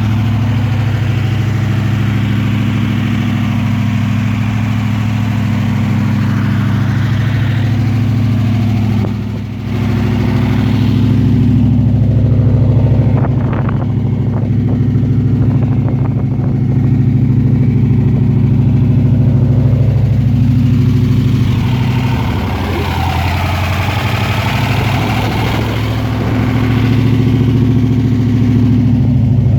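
TVR SEAC's 5.3-litre Wildcat V8 running at idle with a misfire. The engine note is steady, with a brief dip about nine seconds in and a lower note for a few seconds around twenty-two seconds.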